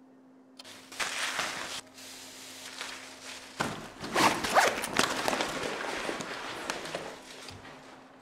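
A plastic bag rustling as it is packed into a canvas bag, then the bag being zipped shut and handled. The loudest stretch is about four to five seconds in.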